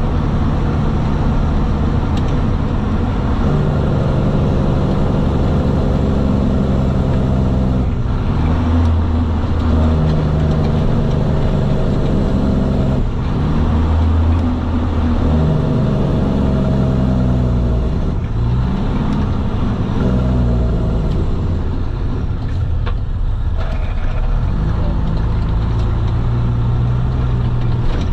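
Semi truck's diesel engine downshifting through the gears of a manual transmission as the truck slows. The engine note changes step by step several times, with the revs raised by the throttle before each lower gear is taken.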